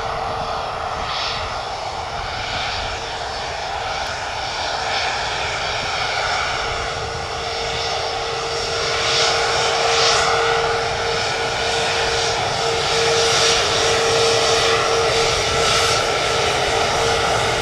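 Jet airliner engines running: a steady whine over a broad rush, growing a little louder after about nine seconds.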